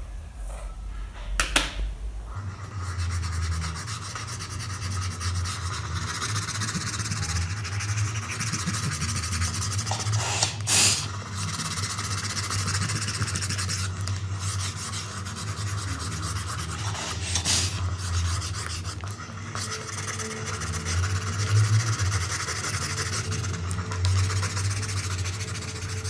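A white eraser rubbing back and forth on drawing paper, erasing pencil construction lines, steady from about two seconds in. A couple of sharp knocks stand out, the loudest about halfway through.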